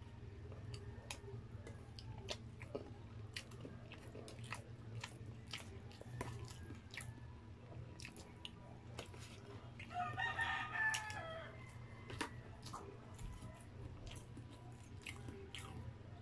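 Close-miked eating sounds: mouth clicks and chewing, with a plastic spoon tapping and scraping in a cardboard food box. About ten seconds in, a rooster crows in the background, the loudest sound, lasting over a second.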